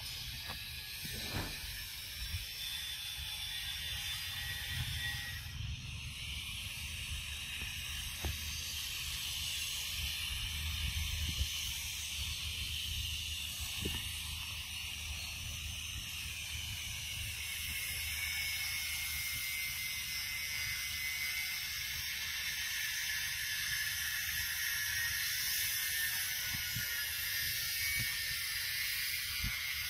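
Forest insects droning steadily at a high pitch, growing a little louder about halfway through, over a low rumble with a few faint clicks.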